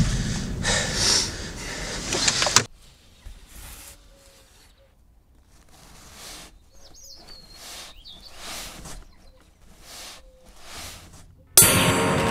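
Loud rushing noise that cuts off abruptly about two and a half seconds in. It gives way to quiet outdoor ambience with soft rustles and a single short bird chirp. Near the end a loud burst of battlefield noise starts suddenly.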